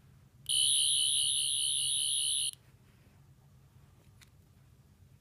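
Wand Company 10th Doctor sonic screwdriver remote sounding its electronic sonic effect: a high warbling buzz that starts about half a second in, lasts about two seconds and cuts off suddenly.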